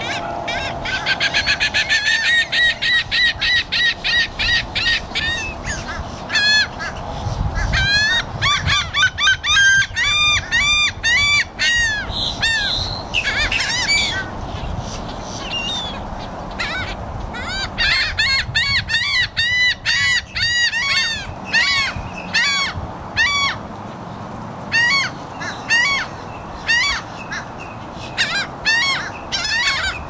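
A flock of laughing gulls calling almost without pause, many short nasal calls overlapping. Some run in quick series of several notes a second, as in the first few seconds. The calling thins out briefly twice, about halfway through and again a little later.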